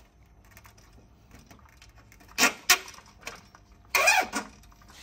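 Nylon cable ties being pulled tight through their ratchets: two short sharp zips about two and a half seconds in, then a longer, louder buzzing zip about four seconds in.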